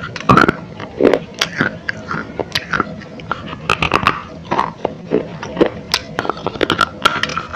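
Close-miked crunching of baked unglazed clay: a terracotta lamp cup bitten and chewed, with many irregular crisp cracks and gritty crunches.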